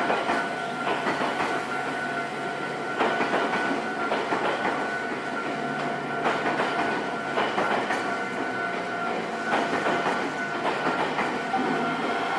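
A train running through a JR Kisei Main Line level crossing, its wheels clicking over the rail joints, with the crossing's warning bell ringing steadily.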